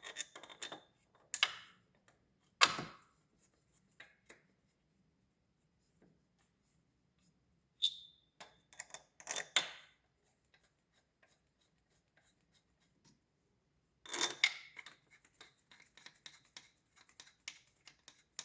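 Hand tools clinking and clicking on metal as the AC compressor's mounting bolts are driven in and tightened, with a few sharp metallic knocks and a run of quick small clicks near the end.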